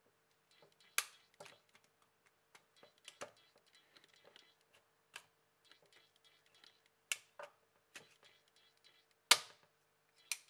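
The plastic back housing of a Huawei Y5 II being pried off with a plastic opening pick: irregular sharp clicks and snaps as its clips let go, with light scraping in between. The loudest snaps come about a second in and again near the end, over a faint steady hum.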